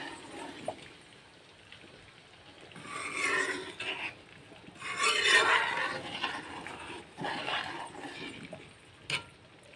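Metal ladle stirring and scraping through simmering chicken gravy in a metal pan, in three rasping spells of about a second each, with a sharp click near the end.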